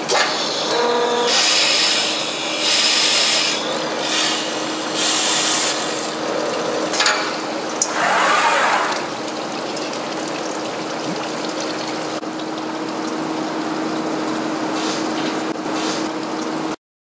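Glass drilling machine's spindle running with a steady hum while its core drill grinds through a wet glass sheet, with harsh hissing grinding in spells over the first six seconds. After that it settles to a quieter steady run, and the sound cuts off abruptly near the end.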